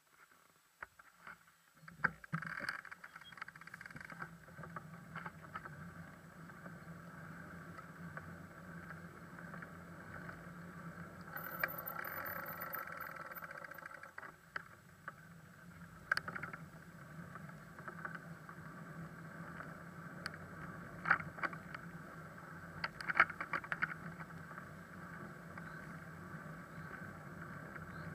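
Bicycle riding on asphalt, heard through a small action camera's microphone: steady rolling and tyre noise, with sharp rattles as the bike goes over bumps, the loudest a cluster near the end.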